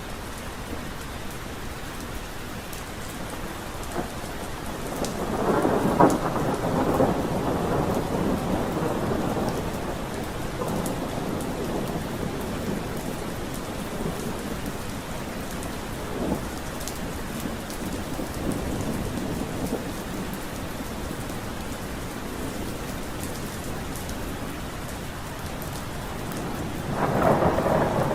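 Steady rain falling, with two rolls of thunder. The first rumbles in about five seconds in and fades over several seconds; the second starts near the end.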